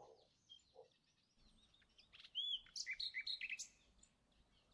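Faint bird chirps: a quick run of short, high twittering notes about two and a half seconds in, lasting around a second.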